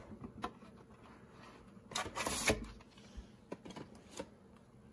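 Scattered plastic clicks and knocks of a VHS cassette and its case being handled, with a louder rustling clatter about two seconds in.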